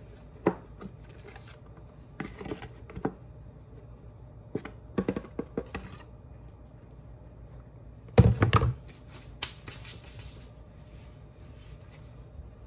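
Powdered sugar being tipped from a canister into a stainless-steel saucepan: scattered light knocks and scrapes of the container against the pan, with one louder thump a little past the middle.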